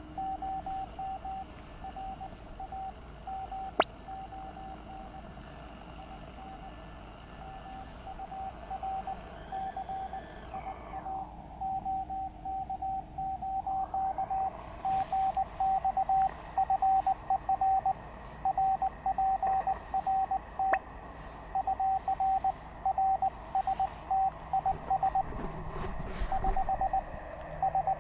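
Morse code from a QRP shortwave transceiver: a single steady tone keyed on and off in dots and dashes, over faint receiver hiss. Two sharp clicks come at about 4 and 21 seconds.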